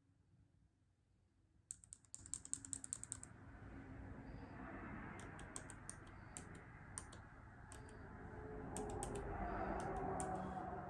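Typing on a MacBook Air keyboard: silence, then about two seconds in a quick run of keystrokes for over a second, followed by scattered single key presses, over a low background noise that swells near the end.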